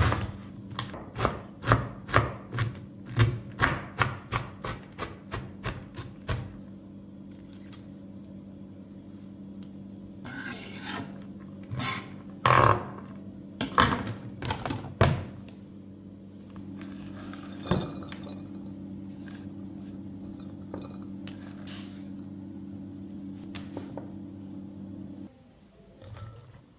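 Chef's knife chopping red cabbage on a plastic cutting board, a quick, even run of sharp strikes for the first six seconds or so. Then a few louder knocks and scrapes of the knife on the board, over a steady low hum that stops near the end.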